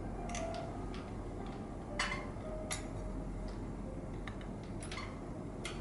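Light, scattered metallic clicks and ticks from a Harrison semi-automatic sock knitting machine as its parts are handled and adjusted, the loudest click about two seconds in.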